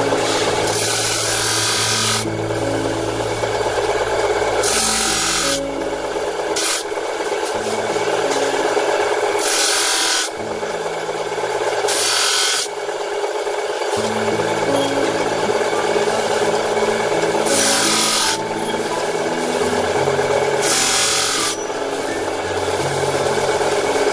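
Electric-motor-driven wire-making machine running steadily with a continuous rasping, rubbing noise. Louder hissing surges come every few seconds.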